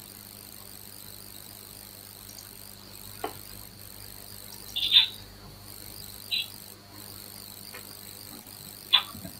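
Crickets chirring steadily at a high pitch over a low electrical hum. Four short, sharp sounds break in, the loudest about five seconds in.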